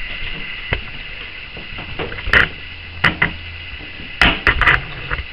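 Irregular knocks and bumps, about half a dozen, from a handheld video camera being picked up and carried to a new spot, over a steady background hiss.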